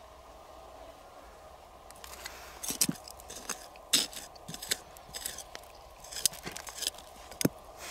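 Small metal hand trowel scraping and digging through gritty soil and small stones, a run of short scratchy scrapes beginning about two seconds in.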